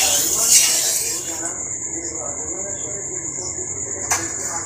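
Spatula moving hot oil around a steel wok, a hissing swish that stops about a second and a half in. A steady high insect trill runs underneath throughout, and there is a single knock near the end.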